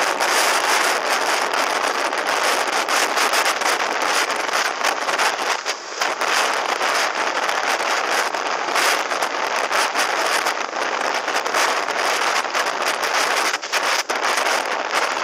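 Wind buffeting a helmet camera's microphone on a motorcycle riding at highway speed: a loud, steady rushing with constant gusty flutter that buries the engine and road noise.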